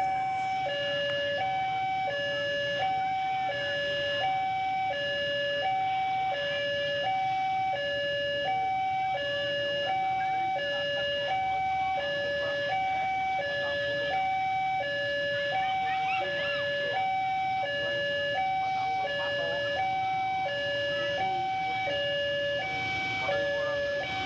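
Railway level-crossing warning alarm sounding for an approaching train: two electronic tones, a higher and a lower, alternating steadily, each held for about two-thirds of a second.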